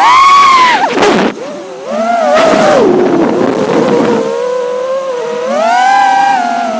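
Brushless motors of a 5-inch FPV freestyle quadcopter whining, the pitch swooping up and down sharply with the throttle. After about four seconds it settles into a steadier whine that dips and then begins to climb near the end.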